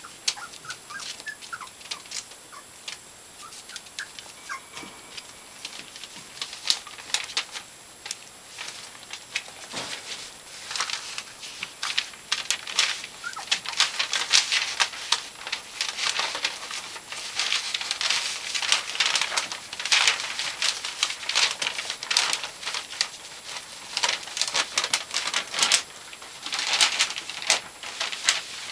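Puppies' claws scratching and pattering on tile and rustling puppy pads as they scramble and wrestle, in quick irregular bursts that get busier and louder after about ten seconds. A few short high puppy squeaks come near the start.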